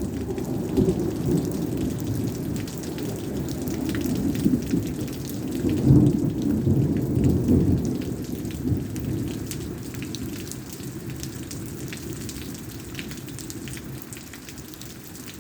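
Steady rain pattering, with thunder rumbling low beneath it; the rumble swells about six seconds in, then dies away, leaving the rain alone near the end.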